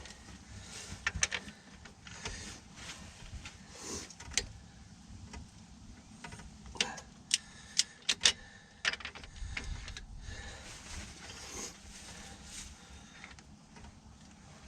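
A click-type torque wrench ratcheting on engine bolts set to 20 foot-pounds: scattered sharp metal clicks and ticks, several in quick succession about halfway through.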